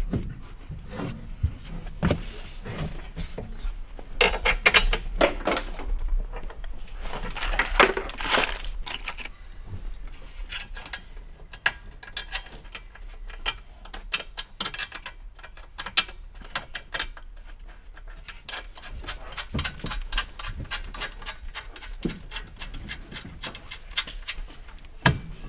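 Metal partition panels knocking, scraping and rattling as a police car partition is fitted and bolted into place, with runs of quick clicking through the later part.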